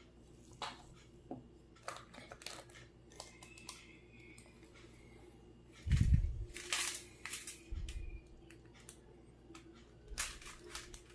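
Handling sounds of shaping dough on parchment paper: scattered clicks, scrapes and paper crinkles, with a heavier knock about six seconds in and a lighter one near eight seconds.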